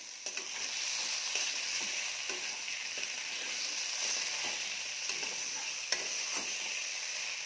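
Carrot sticks and coconut–poppy seed paste sizzling steadily in oil in a wok over a low gas flame. A spatula scrapes and stirs through them every second or two.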